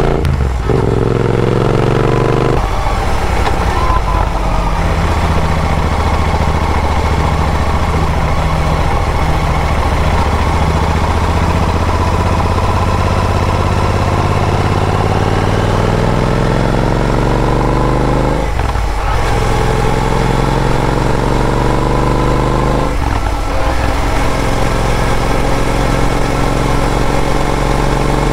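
Royal Enfield Interceptor 650 parallel-twin engine through AEW TE101 aftermarket exhausts: the motorcycle accelerating through the gears, its exhaust note climbing in pitch between brief dips at each gear change, near the start and twice in the latter part.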